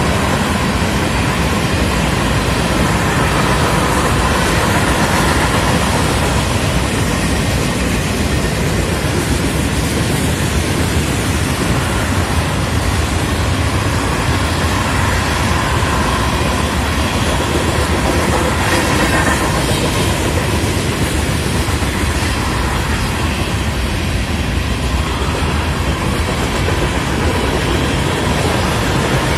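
Freight cars of a Florida East Coast Railway train rolling steadily past, steel wheels running on the rails.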